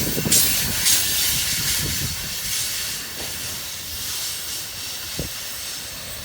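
CSX freight train cars rolling past: steel wheels on rail give a steady high hiss with a few clicks over rail joints, growing quieter as the train draws away.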